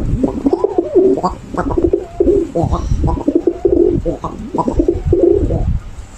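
Pigeon cooing: a continuous run of low, wavering coos that stops shortly before the end.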